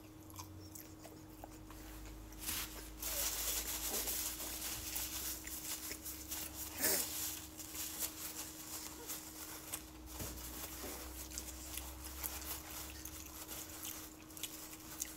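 A person chewing fried chicken, with small mouth noises and a paper napkin rustling, the rustling loudest from about three to seven seconds in. A faint steady hum runs underneath.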